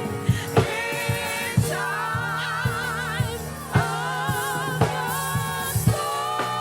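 Gospel music: singers holding long notes with vibrato between lines, over a steady bass and a regular drum beat.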